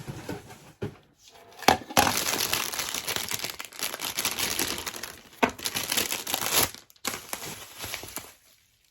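Plastic packaging crinkling and rustling as a boxed toy is unpacked by hand, with a few sharp knocks.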